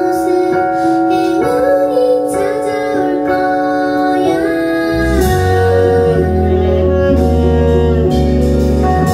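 Live band music: a woman singing over an electric keyboard, with a deep bass and drums coming in about five seconds in.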